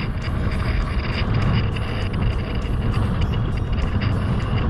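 Strong wind buffeting the microphone of a camera held low over the water, with water sloshing and splashing close by; a steady, gusting rush with irregular crackles.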